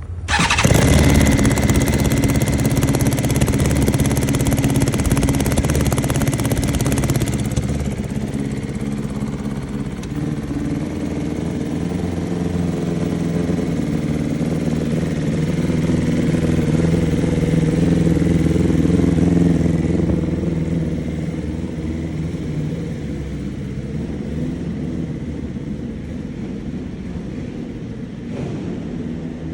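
2022 BMW S1000RR inline-four motorcycle engine starting up about half a second in. It runs louder for the first seven seconds or so, then settles into a moderately rough idle. The roughness is most likely from an exhaust leak and a disconnected fuel injector on cylinder 4, leaving it running on too few cylinders.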